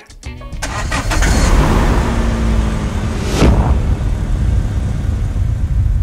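A car engine starts and keeps running, with music over it and a short whoosh about three and a half seconds in.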